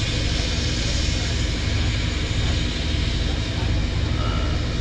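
A steady machine drone with a low hum, unchanging throughout.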